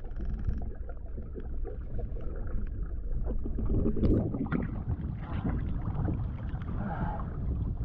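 Choppy water sloshing and splashing around a swimmer at the surface, heard from a mask-mounted camera that dips underwater and back up, so the sound turns muffled and then open.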